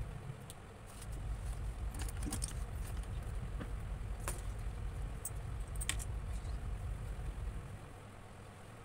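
Steady low background rumble with a few scattered light clicks and taps; the rumble falls away near the end.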